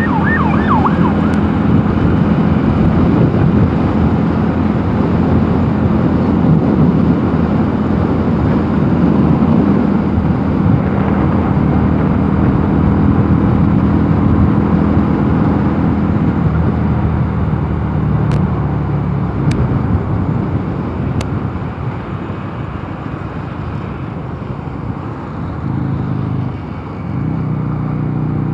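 Mondial Nevada 250 motorcycle engine running steadily at cruising speed under heavy wind rush on the rider's microphone. Past the middle the engine eases off, and it picks up again near the end.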